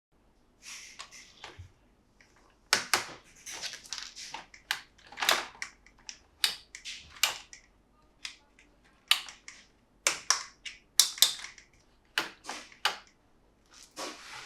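Plastic toy parts and packaging being handled: irregular sharp clicks, snaps and short crinkles, one to three a second, as a toy monster truck playset is unpacked and put together.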